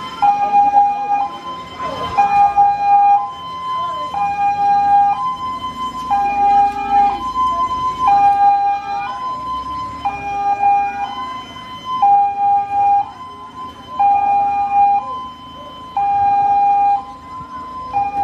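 Ambulance two-tone siren going steadily, switching between a lower and a higher tone about once a second as the ambulance pulls in.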